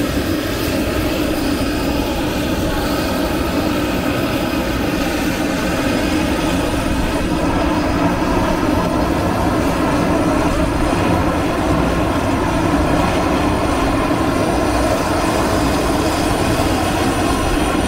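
Steady drone of aircraft engines running somewhere on the airfield, swelling slightly about eight seconds in.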